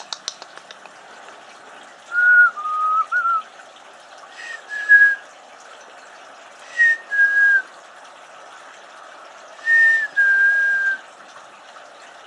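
A person whistling four short phrases a few seconds apart. Most are a higher note dropping to a longer, lower held note, with a breathy hiss under them.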